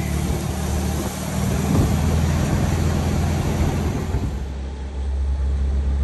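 Vintage air-cooled Volkswagen bus engine running steadily on the road, heard from inside the cabin as a low, even drone with road and wind noise.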